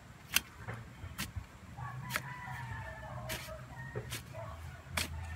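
Spade digging into loose soil, with sharp knocks and scrapes of the blade about once a second.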